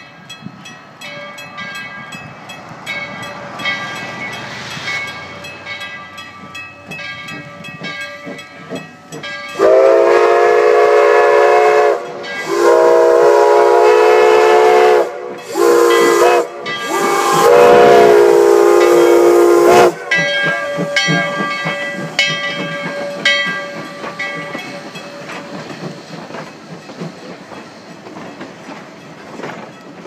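D&RGW 346, a narrow-gauge 2-8-0 steam locomotive, blowing its steam whistle for a road crossing in the long, long, short, long pattern, starting about ten seconds in and lasting some ten seconds. Before and after the whistle its bell rings steadily as it passes.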